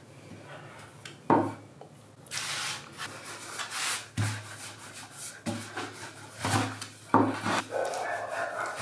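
Long wooden rolling pin rolled back and forth over a wooden pastry board, with a sheet of fresh pasta dough wrapped around it: repeated rubbing swishes, broken by a few short knocks of wood on wood.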